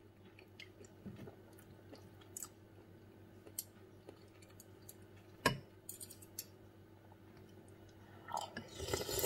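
Quiet chewing of beef bulalo, with light clicks of a metal spoon and fork against a ceramic tureen and one sharper clink about five and a half seconds in. Near the end there is a brief slurp as a spoonful of broth goes to the mouth.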